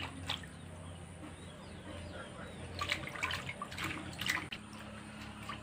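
Hands washing fresh mushrooms in a steel bowl of water: water sloshes and drips, with a cluster of small splashes about three to four seconds in.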